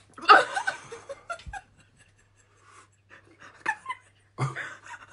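A person panting and gasping, with short pained vocal outbursts, from the burning heat of an extremely hot chili chip. The loudest outburst comes about a third of a second in, with shorter ones a few seconds later.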